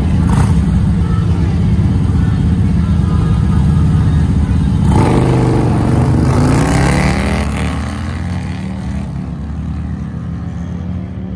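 Two touring bagger motorcycles' engines rumbling at the drag-strip start line, then launching hard about five seconds in, the engine note rising in pitch under full throttle. The sound fades as the bikes pull away down the track.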